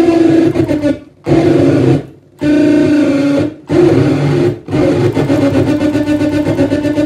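Saxophone feedbacker: a saxophone driven by a loudspeaker mounted on the horn, making a loud, harsh feedback drone. The tone cuts out abruptly four times in the first five seconds as the effects box is worked, then turns into a rapid fluttering pulse.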